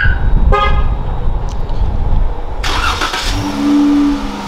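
Dodge Charger's horn giving one short chirp, the car answering a key fob press, over a loud low rumble. About two and a half seconds in comes a short hiss, then a steady low hum.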